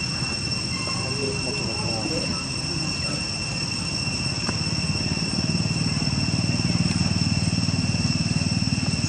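Steady high-pitched insect drone, one unchanging whine with an overtone above it, typical of cicadas in dry tropical woodland. A low rumble builds under it from about halfway through and becomes the loudest sound near the end.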